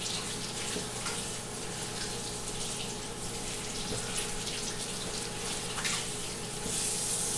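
Two dogs licking and smacking at peanut butter stuck in their mouths: small wet clicks over a steady hiss and hum.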